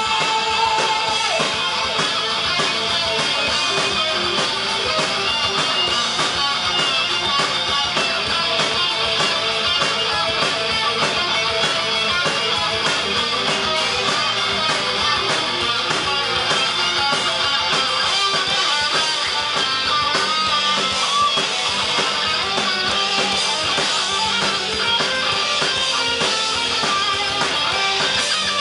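A heavy metal band playing loud and without a break, with electric guitars and a drum kit, heard from the crowd.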